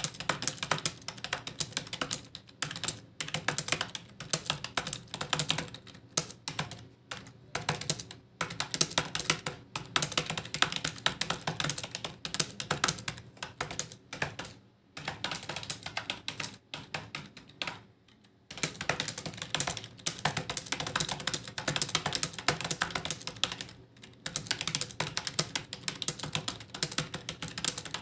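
Fast continuous typing on a computer keyboard, rapid key clicks in runs with brief pauses every few seconds.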